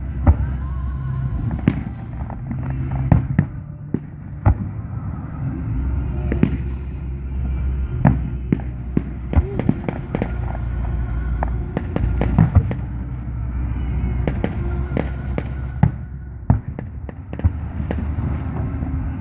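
Aerial firework shells bursting in a quick, irregular barrage: dozens of sharp bangs over a steady low rumble.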